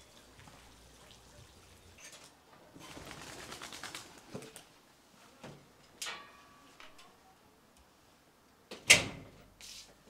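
Handling noises: a stretch of rattling, a few short knocks and a scrape, then one sharp knock, the loudest, about nine seconds in.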